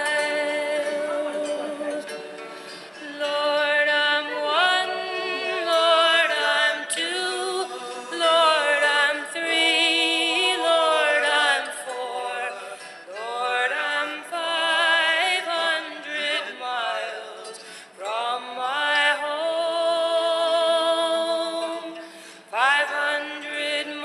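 Background music: a song with a solo singing voice, long held notes with vibrato and upward slides into new phrases.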